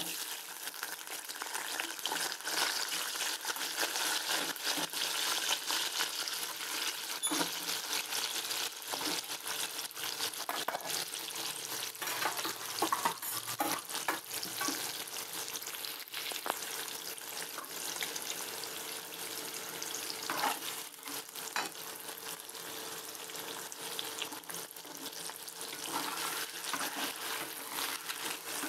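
Peeled potato chunks sizzling steadily as they fry in hot oil in a kadai, with a scattered crackle of spitting oil.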